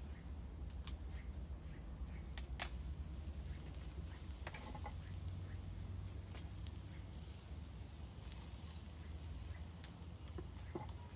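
Metal kebab skewers clicking and scraping as they are lifted off the grill and laid across a platter, with a few sharp clinks, the loudest about two and a half seconds in, over a low steady rumble.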